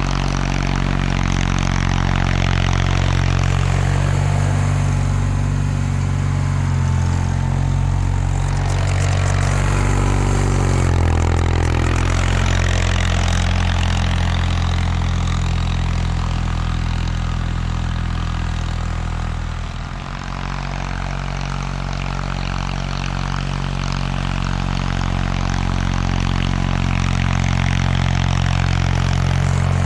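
1979 Bolens HT-23 garden tractor's 23 hp K582 opposed-twin engine running steadily. Its pitch wavers down and back up about ten seconds in, and the sound dips briefly about twenty seconds in.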